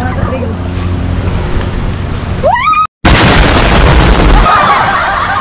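Edited-in explosion sound effect: a short rising whistle, a split-second of silence, then a sudden loud blast with a deep rumble that dies down over about a second and a half.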